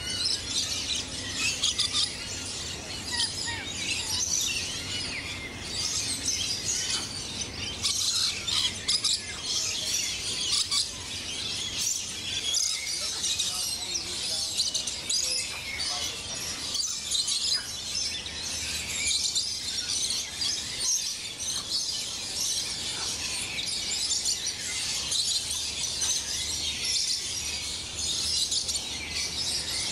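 A chorus of birds chirping and calling, high-pitched, dense and overlapping.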